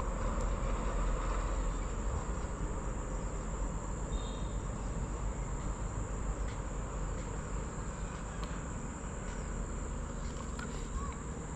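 Insects trilling steadily in one high, unbroken tone over a low background rumble, with a few faint clicks.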